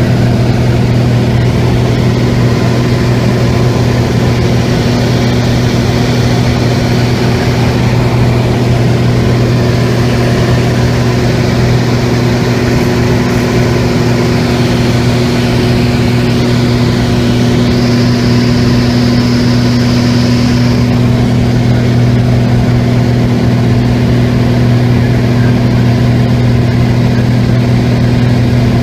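Light aircraft's engine and propeller drone heard from inside the cabin in level cruise: a steady low hum with a deep fixed tone, unchanging in pitch or loudness.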